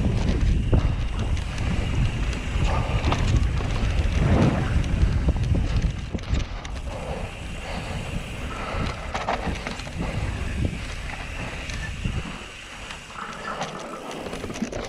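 Wind buffeting the microphone of a mountain bike running down a dirt flow trail, mixed with tyre noise and short rattles from the bike over bumps. The wind rumble is loudest for about the first six seconds, then eases.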